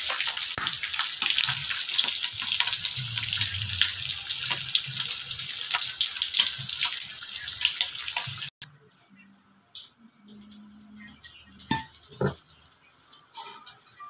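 Fish frying in hot oil: a steady sizzle full of sharp crackles that cuts off abruptly about two-thirds of the way through. After it come low room noise and a few light utensil clicks.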